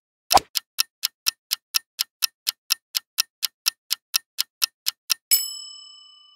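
Quiz countdown timer sound effect: a clock ticking evenly, about four ticks a second, for roughly four and a half seconds. It is followed near the end by a bright bell-like ding that rings and fades, marking the reveal of the correct answer.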